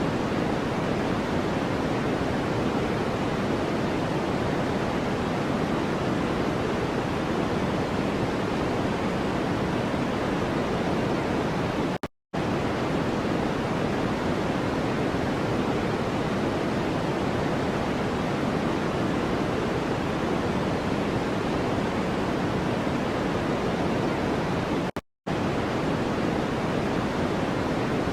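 Steady rushing noise from a white-noise track, deeper and fuller than flat hiss, with most of its weight in the low-mid range. It cuts out completely for an instant about twelve seconds in and again near the end, as if a loop is restarting.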